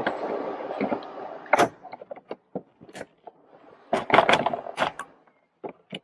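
Plastic dashboard trim panels being handled and pushed into place: a rough rubbing noise for the first second and a half, then a string of clicks and knocks, loudest in a cluster about four to five seconds in.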